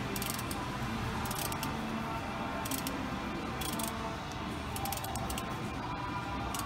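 Hand ratchet clicking in short bursts of quick ticks as a differential cover bolt is worked from under a 2007 Ford Crown Victoria. Faint radio music plays underneath.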